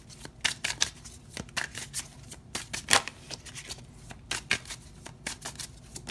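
A tarot deck being shuffled by hand: a quick, irregular run of soft card slaps and flutters, with one sharper slap about halfway through.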